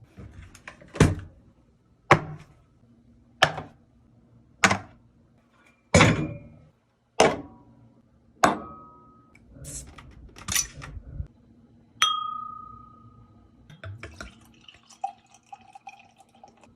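Kitchen work: seven sharp, evenly spaced knocks about every second and a quarter, then lighter clatter of utensils and dishes, with one clink about twelve seconds in that rings briefly.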